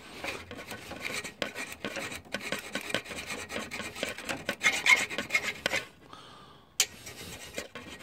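Flat hand file rasping paint off a GY6 scooter's metal frame down to bare metal for a ground-wire contact, in short repeated strokes. The strokes stop briefly near the end, then a sharp click and the filing resumes.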